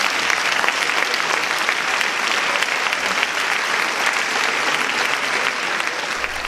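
Theatre audience applauding, a dense steady clapping from many hands.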